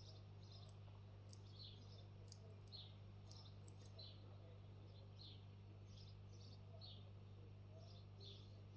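Faint, sharp little clicks of a lock pick working the pins of a Miwa dimple lock, about seven in the first four seconds, over a steady low hum, with faint short high chirps repeating throughout.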